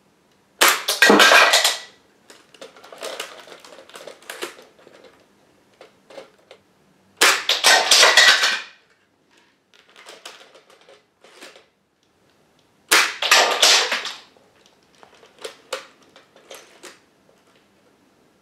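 Brick-built LEGO T-5000 sniper rifle firing three times: each shot is a loud clattering snap of the plastic mechanism lasting about a second, followed by quieter scattered clicks of LEGO projectiles and brick targets knocked over and tumbling on the floor.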